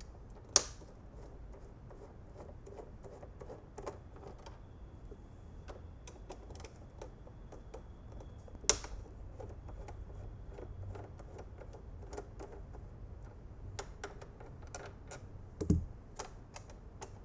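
Screws being backed out of a Peloton spin bike's plastic belt guard with a Phillips screwdriver: scattered small clicks and ticks, with a sharp click about half a second in and another midway, and a low thump near the end.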